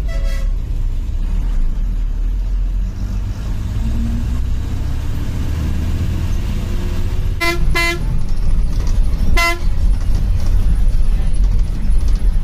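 Bus engine and road rumble inside the moving bus, with short horn honks: a faint one at the start, two quick honks about seven and a half seconds in, and a third about two seconds later.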